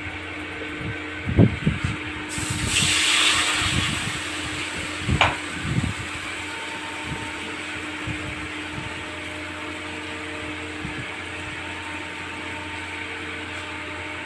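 Spices dropped into hot oil in a steel wok sizzle about two seconds in, the sizzle dying away over a couple of seconds. A knock and a sharp metal clink of utensils come around it, over a steady fan-like hum.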